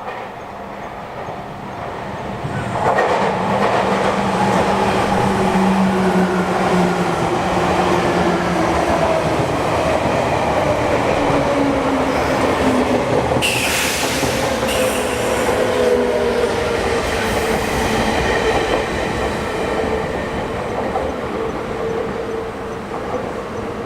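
A Sotetsu line electric train passing close by, swelling in about three seconds in, its motor whine sliding down in pitch as it goes, with the wheels running on the rails. A short high screech about halfway through.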